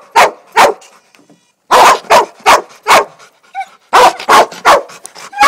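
Dogs barking in quick, sharp barks, excited and eager to chase the RC airplane. The barks pause briefly about a second in, then resume in rapid runs.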